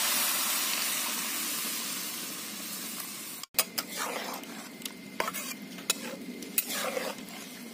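Boiled masoor and moong dal poured into a hot metal kadai, hissing loudly as it hits the pan and slowly dying down. Then a metal spatula scrapes and clicks against the kadai as the dal is stirred over a soft simmer.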